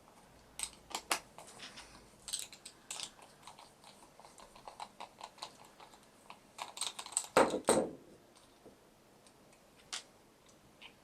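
Small parts and tools of an RC model car being handled on a workbench: irregular light clicks and taps, with a louder clatter about seven and a half seconds in.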